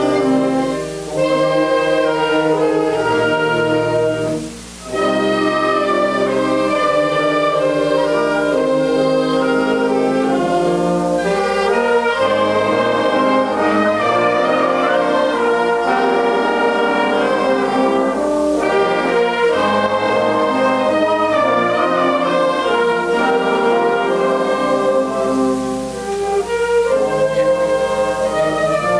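Youth wind band of flutes, clarinets, saxophones and brass playing a piece together in sustained chords, with brief breaks about a second in and near five seconds in.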